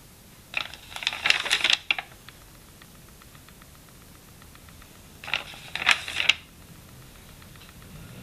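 Paper notebook pages being turned by hand: two crackling page-turn rustles, one starting about half a second in and lasting over a second, the other about five seconds in.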